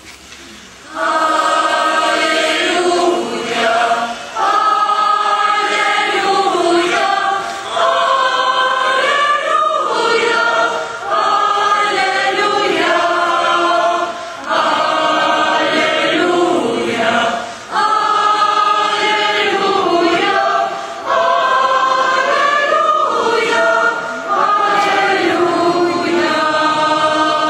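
A small group of women singing a religious hymn into a microphone, in sustained phrases of about three seconds each with short breaks for breath between them.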